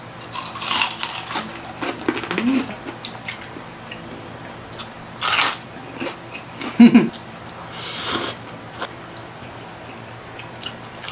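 Close-miked eating sounds: crunchy bites into crispy deep-fried pork skin (crispy pata) and chewing, in scattered bursts, the loudest about seven seconds in.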